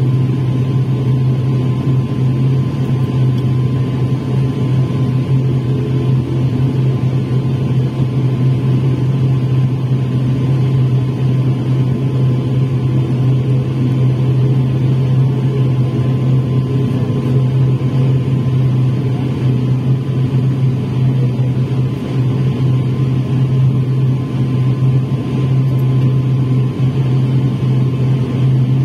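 Turboprop airliner's engine and propeller droning steadily, heard from inside the passenger cabin, with a constant high tone over the low drone.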